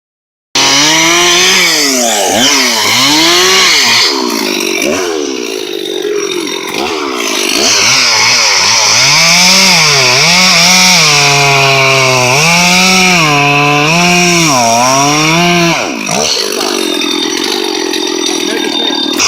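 Stihl MS 460 two-stroke chainsaw running hard, starting about half a second in. Its pitch sags and recovers again and again as the chain cuts into wood under load.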